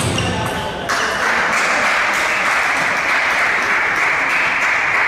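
Spectators applauding a won point in a table tennis hall: steady clapping that starts about a second in and continues without a break.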